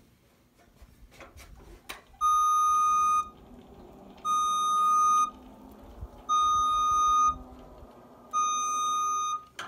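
JLG scissor lift's motion alarm beeping four times, each beep a steady high tone about a second long, about two seconds apart, while the lift moves. A low hum runs under the beeps, and a few light knocks come just before the first one.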